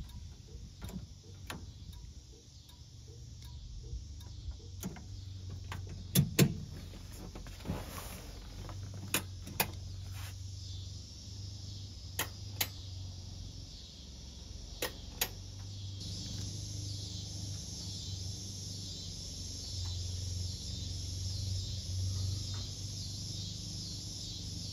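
Light controls of a 1956 Chevrolet 150 being worked: a turn-signal flasher ticks briefly at the start, then switches click sharply in close pairs every few seconds, over a low steady hum.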